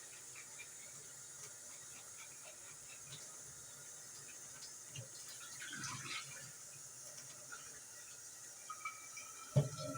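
Kitchen tap running steadily with a faint hiss, filling a glass bottle with hot water, with a few light clicks and a knock near the end.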